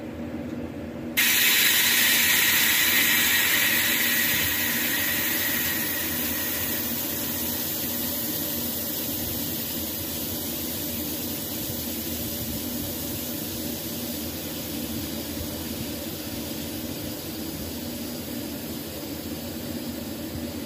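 Compressed air hissing into a boat-trailer tire's inner tube. It starts suddenly about a second in, is loudest at first, then eases off and goes on steadily over a low hum.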